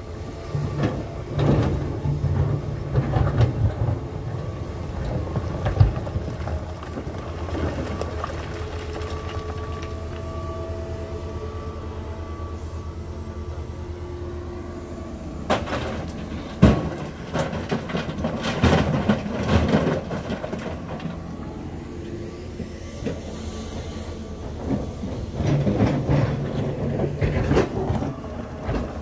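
John Deere 350G excavator's diesel engine running under load as it digs rock and gravel, with a steady drone and a higher whine in the middle stretch. The bucket scrapes and clanks against stones, with a few sharp knocks, the loudest about two-thirds through.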